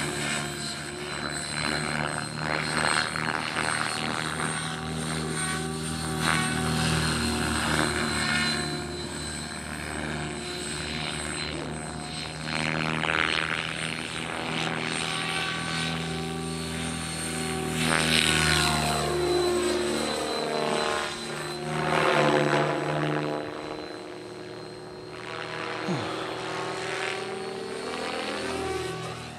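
Radio-controlled model helicopter flying 3D aerobatics: the steady whine of its motor and spinning rotor, stepping up and down in pitch and swelling and fading in loudness as it manoeuvres.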